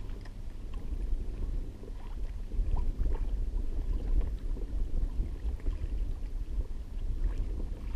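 Wind buffeting the microphone as a steady low rumble, with water lapping against a kayak's plastic hull.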